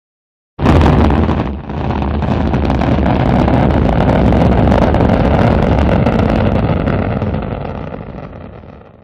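Rocket engine roar, a deep rumbling rush that starts abruptly about half a second in, dips briefly a second later, runs steady, then fades out over the last two seconds.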